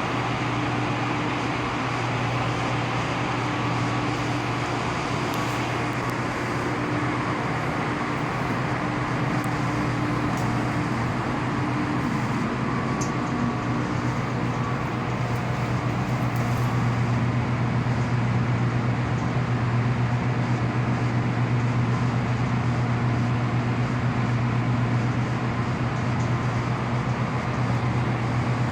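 Low-voltage MCC outgoing power cables giving a steady, very high humming sound. The cables vibrate against each other because the wrong cleats were used.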